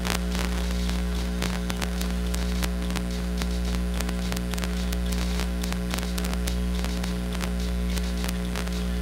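Steady electrical mains hum from a live-band loudspeaker system idling between songs, peppered with irregular crackling clicks.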